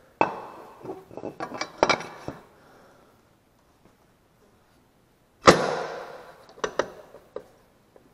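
Metal engine parts handled and fitted together: light clinks and knocks, then one loud clunk with a short ring about five and a half seconds in, followed by a few more clicks. The parts are the oil pan and crankcase of a small engine being put back together.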